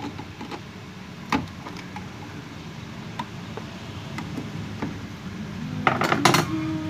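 Small hand tools clicking and tapping against the mixer's circuit boards and metal chassis: scattered light clicks, a sharper one about a second in, and a short burst of clattering knocks near the end, over a steady low hum.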